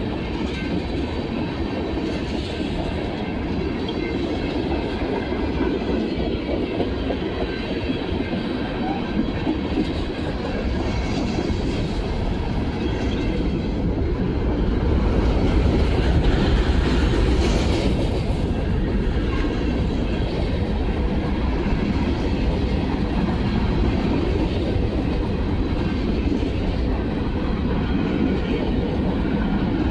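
CSX freight train's cars rolling past, their steel wheels clattering steadily on the rails, getting a little louder about halfway through.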